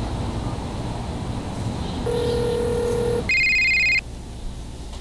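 Telephone call tones: a steady low ringback tone for about a second, then a louder, higher warbling electronic phone ring for under a second that cuts off abruptly.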